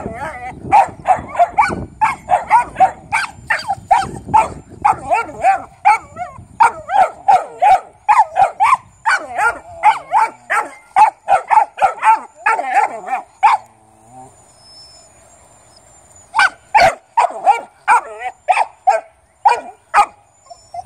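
Dog barking rapidly and repeatedly, about two to three barks a second, at a snapping turtle it has come upon. The barking breaks off for about three seconds past the middle, then starts again.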